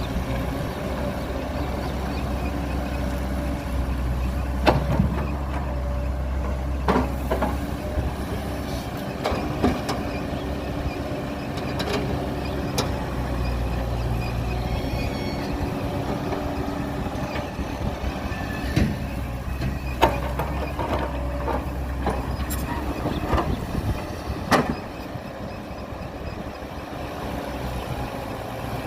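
Heavy earthmoving machinery's diesel engine running steadily, with sharp metallic clanks and knocks now and then, a few seconds apart.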